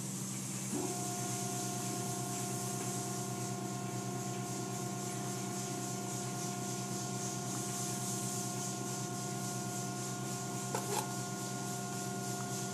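Automatic car wash machinery running: water spray hissing and cloth brushes rubbing over a car under a steady motor hum, with a steady whine coming in about a second in. A couple of brief knocks near the end.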